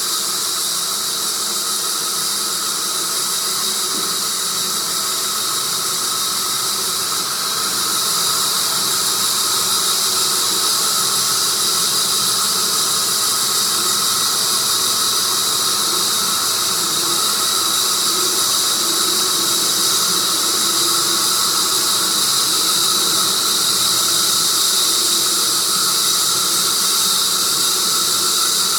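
Sawmill blade cutting through a tree of heaven log: a steady, high-pitched whine and hiss that gets a little louder about eight seconds in.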